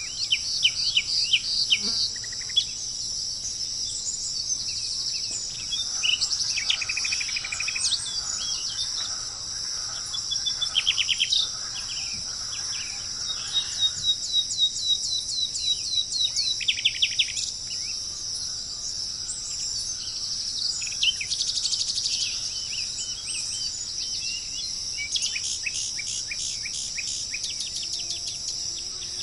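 Several birds chirping and giving quick runs of trilled notes in bursts, over a steady high-pitched drone of insects.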